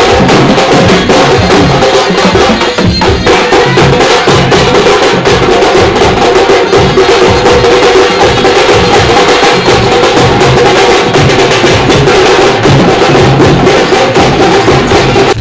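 A street drum band beating strap-hung drums with sticks in fast, dense, unbroken rhythm, loud throughout.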